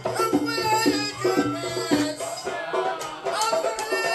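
Background music with a steady percussion beat and a melody over it.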